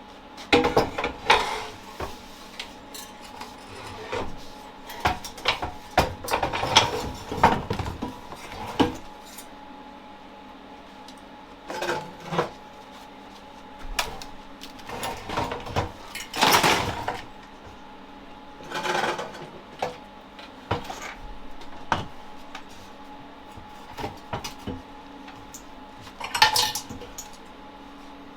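Metal clinking and scraping in irregular bursts, with short pauses between: hard metal parts of a car exhaust being handled and worked on a bench.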